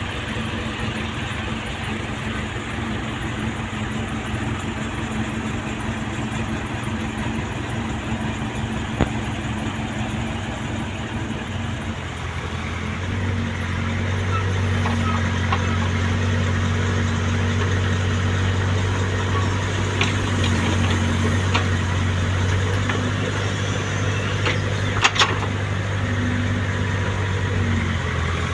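Heavy diesel engines of earthmoving machinery running steadily. About halfway through, a low engine note grows louder and holds. A few sharp metallic knocks come near the end.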